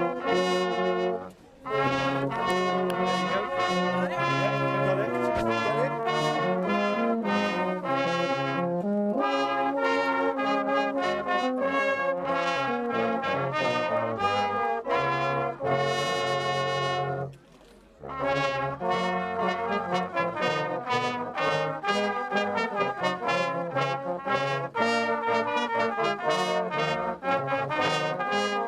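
Brass band playing a piece together, with trombones and trumpets. The music breaks off twice for a moment between phrases, about a second and a half in and again a little past halfway.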